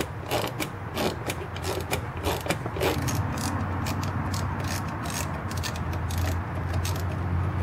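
Socket ratchet clicking as it turns a 10 mm bolt on the headlight ballast bracket, a few clicks a second for about three seconds. After that the clicks are fainter, over a steady low hum.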